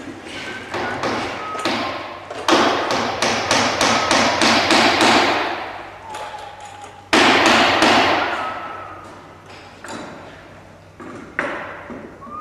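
Hammer blows on the wooden timber of a boat's backbone: a fast run of about four to five strikes a second in the middle, then a single heavy blow and a few scattered taps.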